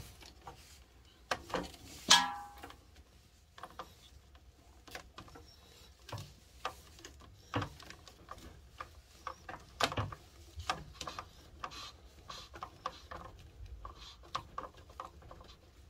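Scattered clicks and knocks of a hand tool and plastic filter fittings as a water-purifier filter connection is turned tight, with one louder clink about two seconds in.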